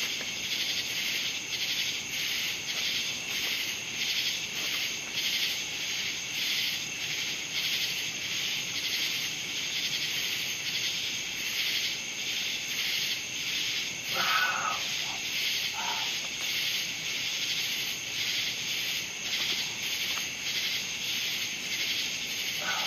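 Outdoor chorus of insects chirping in steady, even pulses, with a couple of brief faint calls about two-thirds of the way through.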